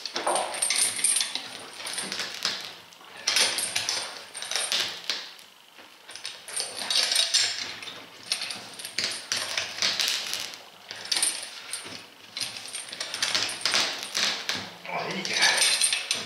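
Steel clamp and chain clinking and rattling as a clamp bitten into the tread of an Omsk OI-25 truck tyre is hauled on, with the rubber tearing away in repeated bursts every second or two.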